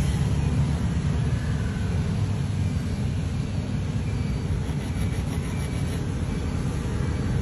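Steady low background rumble, with no distinct strokes standing out.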